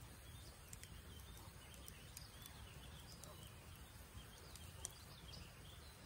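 Wood campfire crackling faintly, with scattered sharp pops, the loudest about five seconds in. Faint bird chirps sound in the background over a low steady rumble.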